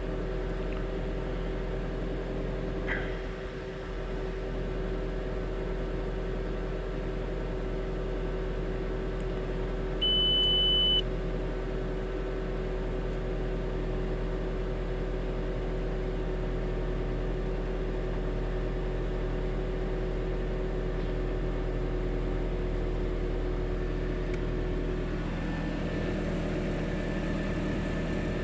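2002 Volkswagen Jetta 1.8T's turbocharged four-cylinder engine running steadily, a drone with several steady tones, part of the noises the owner cannot identify. A single one-second beep sounds about ten seconds in, and the tones shift about 25 seconds in.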